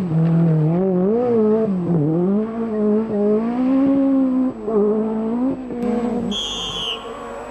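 Peugeot 205 T16 Evo2 Group B rally car's turbocharged four-cylinder engine revving hard as the car passes and pulls away, its pitch climbing and dropping repeatedly through the gearchanges. The engine note falls away about six seconds in, followed by a brief high whistle.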